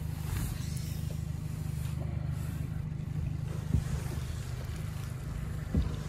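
Outboard motor running steadily at low trolling speed, a low even hum, with two short knocks in the boat about four and six seconds in.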